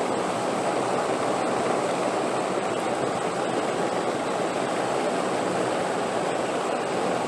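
Steady wind, an even rushing noise that holds at the same level without gusts or breaks.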